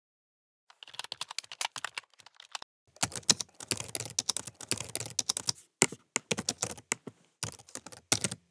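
Keyboard typing sound effect: rapid runs of key clicks with short pauses between them.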